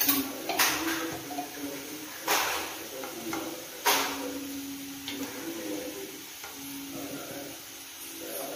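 Four sharp kitchen knocks and clinks in the first four seconds, typical of spoons or spice containers knocking against a metal pan, over faint low steady tones.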